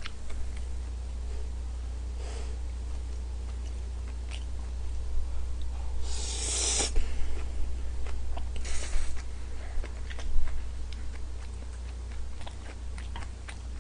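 A man eating stir-fried udon noodles close to the microphone, with small chewing sounds throughout. There is a long slurp about six seconds in and a shorter one near nine seconds, over a steady low hum.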